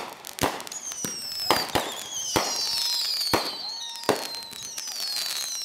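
Aerial fireworks bursting: a string of about seven sharp bangs at uneven gaps, overlapped by several high whistles that each fall in pitch.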